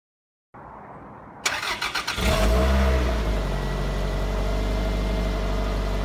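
Toyota MR2 SW20's 2.0-litre four-cylinder 3S-GE engine started through its stock exhaust: the starter cranks briefly about a second and a half in, the engine catches, flares briefly and settles into a steady idle.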